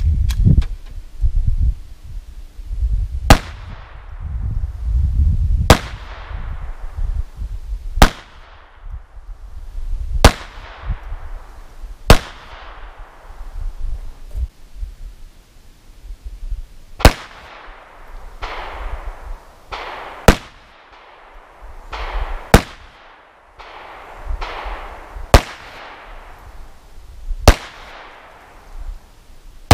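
.22 LR pistol shots, ten single shots at a slow, steady pace, each with a short echo: five from a Smith & Wesson M&P 22, a pause of a few seconds, then five from a Beretta M9-22.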